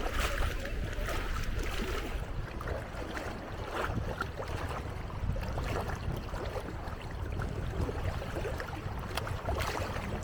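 Wind buffeting the microphone, a steady low rumble, over shallow sea water lapping and splashing at the shore, with scattered small splashes.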